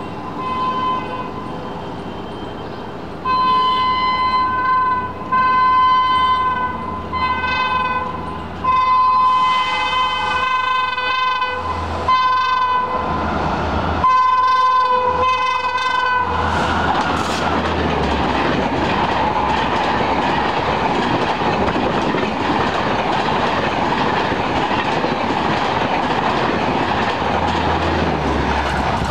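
An approaching express train's horn sounds in a long series of short blasts. From about halfway through, the train runs past at full speed with a loud, steady rush and rattle of wheels and coaches.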